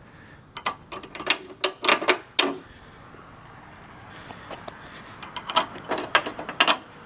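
Sharp metal clicks and clinks in two short runs as bolts are fitted through a winch fairlead into its mounting plate.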